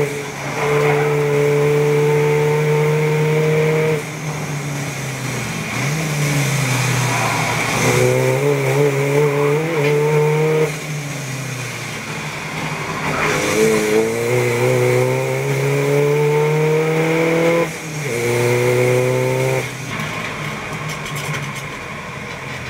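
Race-car Golf's CUAA 2.0 TDI turbo-diesel engine heard from inside the cabin under hard acceleration on track. The engine note climbs steadily in pitch, then drops back sharply at each lift or gear change, several times over. Near the end it settles lower and quieter as the car slows.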